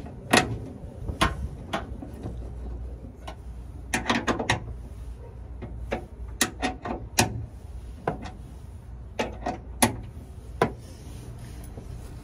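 Irregular metal clicks and clinks of a socket wrench working on the hood hinge bolts, with a quick cluster of clicks about four seconds in and single sharp knocks scattered after it.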